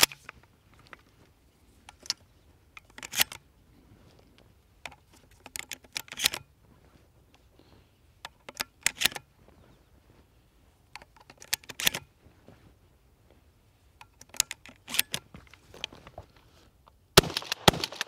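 Shells being pushed one at a time into a pump-action 12-gauge shotgun's tube magazine: sharp metallic clicks and clacks every second or two. Near the end a much denser, louder run of sharp cracks sets in.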